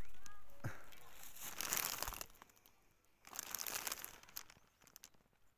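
Footsteps crunching in fresh snow: two bursts of crunching, about a second each, one near the start and one past the middle.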